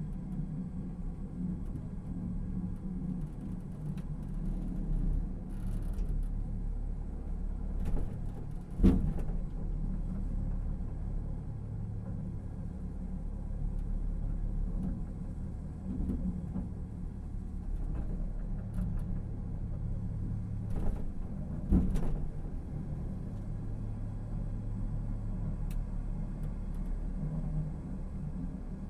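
Inside a Busan Sky Capsule, a small self-driving rail car on an elevated track, running along: a steady low rumble of the car's vibration, with sharp knocks from the running gear about 9 seconds in and again about 22 seconds in.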